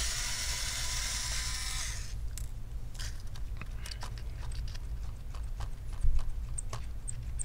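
Electric screwdriver whirring for about two seconds as it backs a screw out of a laptop motherboard, followed by scattered light clicks and a louder tap about six seconds in.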